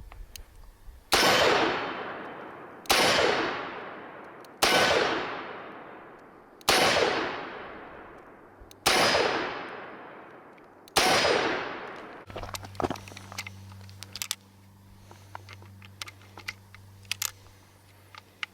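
Smith & Wesson Model 19 .357 Magnum revolver firing six shots, about two seconds apart, each followed by a long fading echo. After the sixth shot come light metallic clicks of the revolver being handled.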